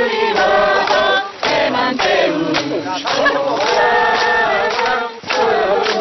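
A group of men and women singing together, clapping their hands along in time.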